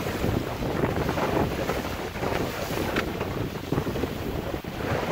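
Wind buffeting the microphone over the rush and slap of the bow wave of a small open sailboat under way in a chop, with irregular splashes as the bow meets the waves.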